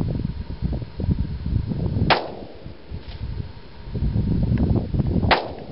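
Two shots from a stock Glock 20 SF pistol firing 10mm Auto, about three seconds apart, the first followed about a second later by a faint second report.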